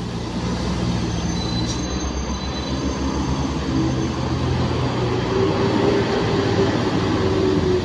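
Heavy diesel engine of a tour bus running under load, growing louder as the bus comes closer; a steady higher-pitched whine joins the engine about five seconds in.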